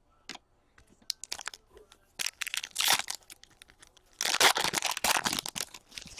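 Trading-card pack wrappers crinkling and tearing as they are handled and opened, with light clicks in between and two spells of dense crackling, the longer one about four seconds in.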